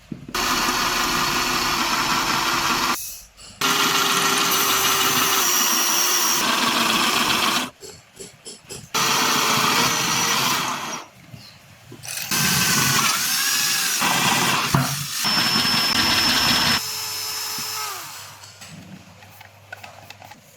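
Power tool running in four bursts of a few seconds each, starting and stopping abruptly. Partway through, its pitch dips and rises, and near the end a quieter hum fades away.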